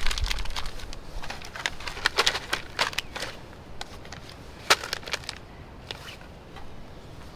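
Crinkling and rustling of a small paper or foil packet being handled and torn open: a quick run of sharp crackles that thins out after about five seconds.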